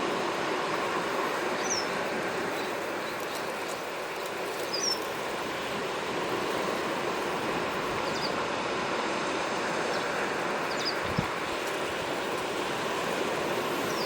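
Steady wash of waves on the shore, with a small bird's short high chirps a few times and one brief low thump late on.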